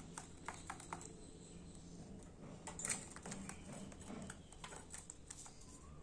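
Irregular light clicks and taps from pet budgerigars in a wire cage, with one louder knock about three seconds in.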